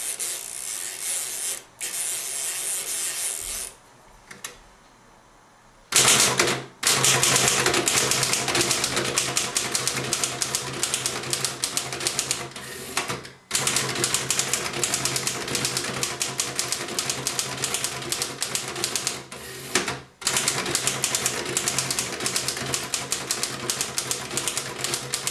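A 1919 L.C. Smith & Bros. No. 8 manual typewriter being typed on at a steady pace: fast strings of keystrokes striking the platen, in several runs with short pauses between them.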